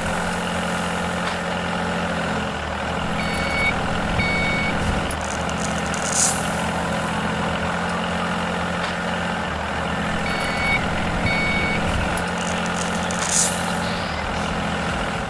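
Heavy construction vehicle's diesel engine running steadily, with a reversing alarm giving two short beeps at about three seconds and two more at about ten seconds, and a short hiss of air at about six seconds and again near the end.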